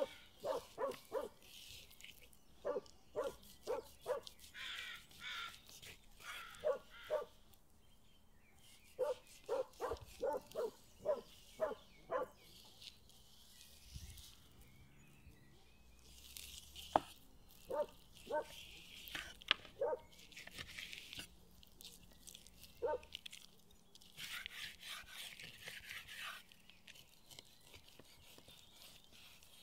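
An animal calling in the background in quick runs of short barking calls, several a second, busiest in the first half and sparser later. Between the calls come a few brief scraping swishes, the knife slicing through raw beef on a wooden board.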